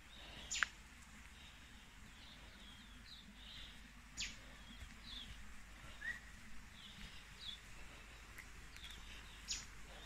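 Forest birds calling: scattered short chirps, with three sharp quickly falling notes standing out, about half a second in, near the middle and near the end.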